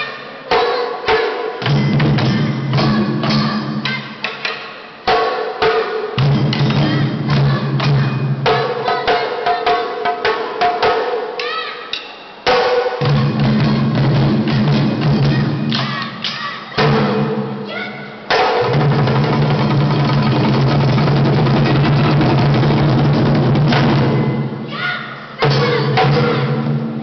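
Taiko drumming: several large barrel-bodied nagado-daiko struck hard with wooden bachi sticks in fast, interlocking rhythms, the deep drum heads ringing. About eighteen seconds in the playing turns into a steady, unbroken roll lasting some six seconds, then breaks back into separate strikes.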